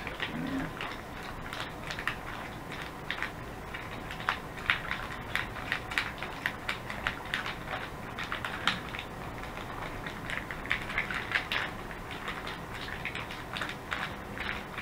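Irregular crackling and crinkling from an MRE flameless ration heater bag, just activated with water, with many small close-spaced ticks throughout.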